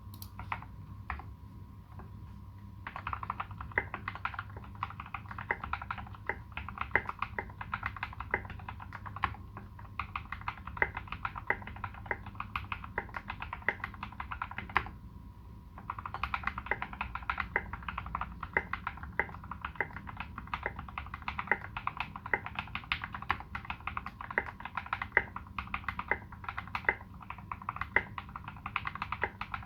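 Typing on a Space65 custom mechanical keyboard with fully modded Turquoise Tealios linear switches, tuned Cherry screw-in stabilizers and SA-profile keycaps. A few separate key presses at first, then a fast, dense run of keystrokes that pauses for about a second halfway through and resumes.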